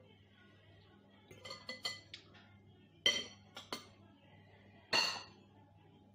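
Metal fork and spoon clinking and scraping against a soup bowl: a run of light clinks, then three sharper clinks, the last the loudest.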